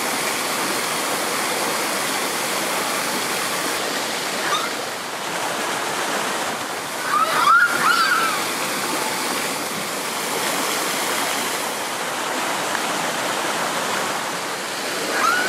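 Steady rushing and splashing of an artificial waterfall over rocks. A few short high calls rise over it about halfway through.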